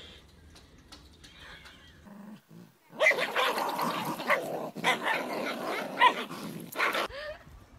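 Two dogs play-fighting, growling and barking in a dense, continuous run that starts about three seconds in and stops shortly before the end. Only faint sounds come before it.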